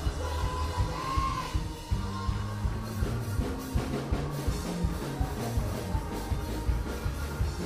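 Band music with a drum kit keeping a steady beat of about two strokes a second over a bass line.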